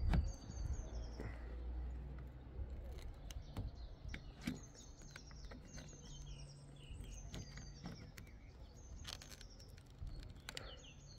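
Small birds chirping repeatedly in the background over a low steady hum, with a few sharp clicks from the plastic roof-rail trim and its clips as a plastic pry tool works them loose.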